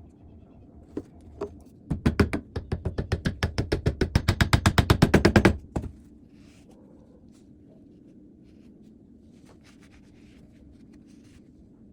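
Two single knocks, then a fast run of sharp knocks, about eight a second, growing louder for some three and a half seconds before stopping abruptly. A few faint clicks follow.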